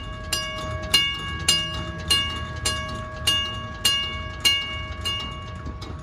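Railroad crossing signal bell with a mechanical gong, struck about every 0.6 seconds, its tone ringing on between strikes. The striking stops shortly before the end and the ring dies away.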